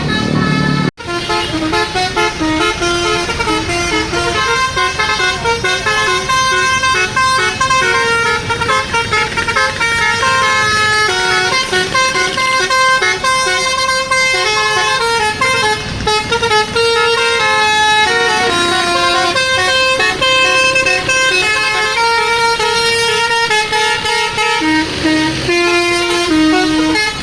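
Bus 'basuri' telolet horn, a set of melodic air horns, playing a tune of held notes that step from one pitch to the next. There is a brief break about a second in.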